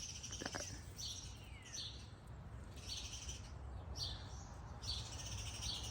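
Birds singing: high buzzy trills repeated about once a second, with a short falling chirp about a second and a half in, over a steady low background rumble.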